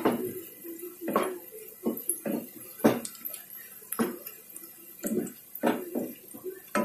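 Wooden spatula scraping and knocking against a nonstick wok as sliced shallots frying in oil are stirred, about one stroke a second.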